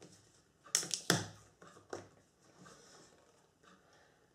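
Things being handled on a table: a quick pair of sharp knocks or clicks about a second in and another just before the two-second mark, then faint shuffling.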